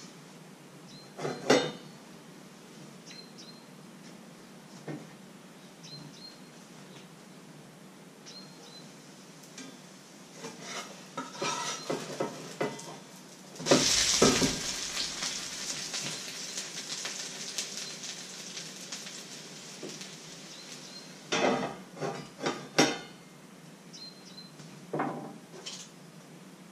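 Pancake batter poured into a hot frying pan: a sudden loud sizzle about halfway through that slowly fades over several seconds. Metal pans and utensils clink and knock before and after it.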